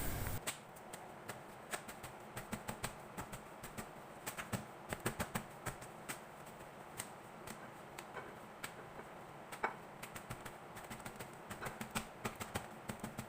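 Faint, irregular crisp clicks and crackles from flaky cooked parathas being handled and scrunched by hand, which loosens their layers.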